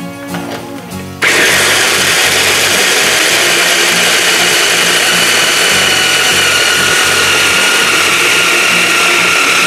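Electric hand blender with its mini chopper attachment switching on about a second in and running steadily, whining as it blends chilled veal, salt, pepper and cream into a smooth forcemeat.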